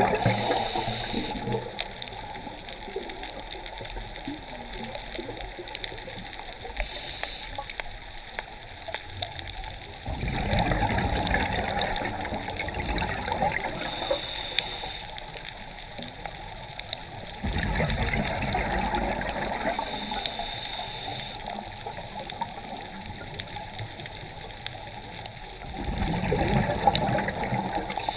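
Scuba diver breathing underwater through a regulator: a short hiss on each breath in, then a burst of exhaled bubbles gurgling for two or three seconds, repeating about every seven seconds.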